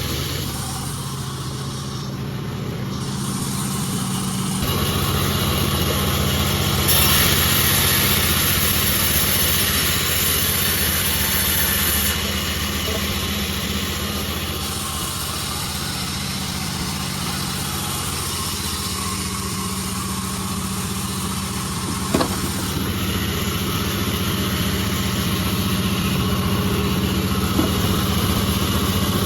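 Sawmill's engine running steadily, with a louder, hissier stretch of several seconds near the middle and a single sharp click later on.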